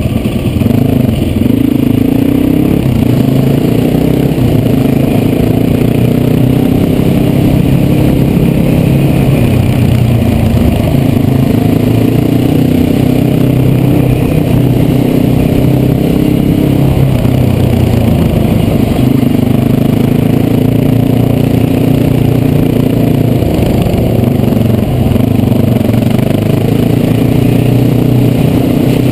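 Yamaha WR450F supermoto's single-cylinder four-stroke engine running under way, heard close up from the bike, its pitch rising and falling with the throttle.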